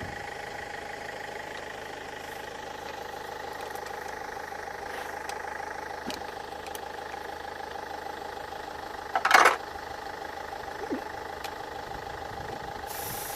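Land Rover Freelander 2.0 TD L-series diesel being cranked over on the starter without firing, a steady sound with an even beat; the no-start is down to an air leak in the fuel pipes. A short, loud clatter cuts in about nine seconds in.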